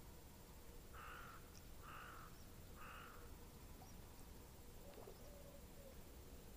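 A crow cawing three times, about a second apart, faint over a steady low background hiss.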